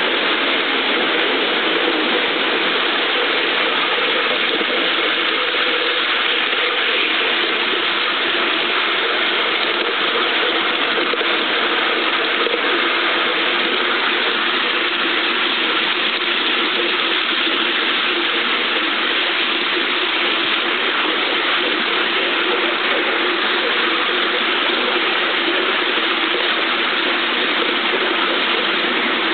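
5-inch gauge model of a King Arthur class steam locomotive running along its track, heard from right behind its tender: a steady, unbroken mechanical running noise of wheels, motion and exhaust.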